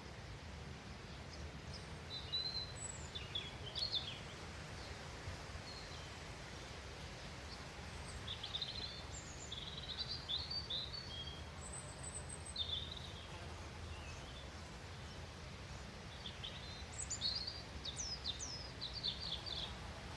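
Small songbirds chirping and trilling in short clusters over a steady low background hum.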